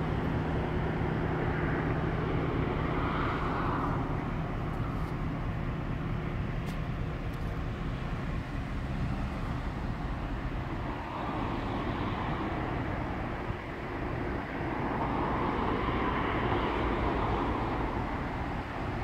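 EMD G-16 diesel-electric shunting locomotive's two-stroke V16 diesel engine working as it moves a string of freight wagons. A steady low engine hum fades after about eight seconds, over continuous noise that swells and eases.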